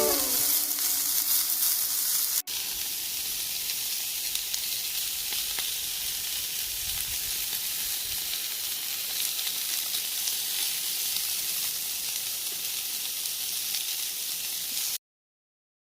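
Food sizzling as it cooks, a steady hiss with faint crackles, broken by a brief cut about two and a half seconds in and stopping abruptly just before the end.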